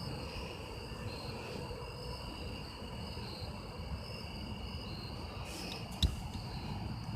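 Insects chirring steadily in a high, unbroken chorus over a low outdoor rumble, with one sharp knock about six seconds in.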